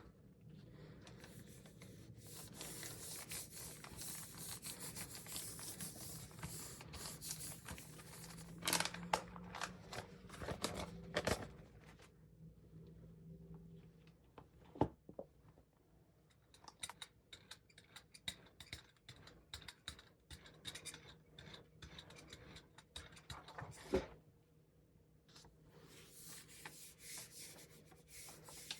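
Rubbing and scratching of hands, paper and a roller on a gel printing plate, with scattered small clicks and taps. It begins with a long stretch of continuous rubbing, goes quieter with brief ticks through the middle, and the rubbing returns near the end.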